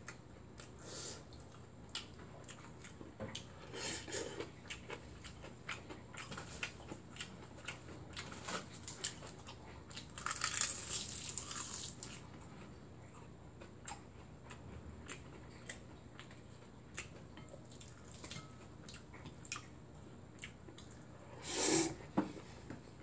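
Close-up eating sounds: chewing of noodles and fried Spam, with scattered small clicks. Near the end comes a loud slurp of noodles.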